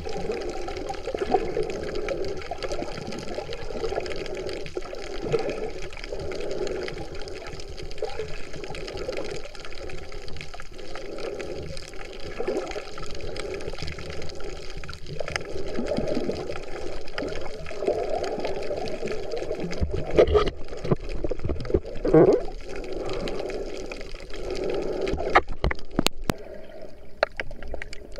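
Water heard underwater through an action camera's waterproof housing: a continuous muffled, churning wash, with a few sharp clicks near the end.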